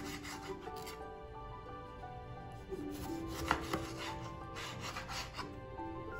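Chef's knife slicing through a tomato and tapping down on a plastic cutting board, a run of short cuts with the sharpest knock about three and a half seconds in. Soft background music plays underneath.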